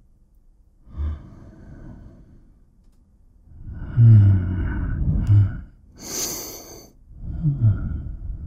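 A man's voice making low, drawn-out, wordless vocal sounds in three stretches, some falling in pitch, with a short breathy hiss about six seconds in.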